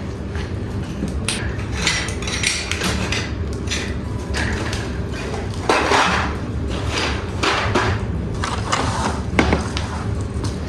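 Pottery shards clinking and clattering against each other as they are handled and arranged: a string of irregular hard knocks, the loudest about six seconds in.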